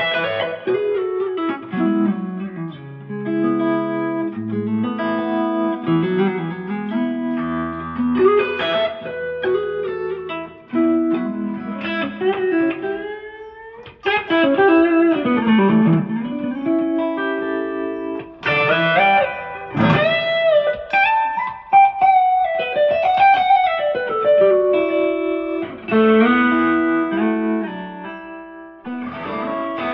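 Electric guitar played through a JK Amplifiers Oxygen valve preamp: a melodic lead line of quick note runs, with notes bent up and down in pitch and held with vibrato in the second half.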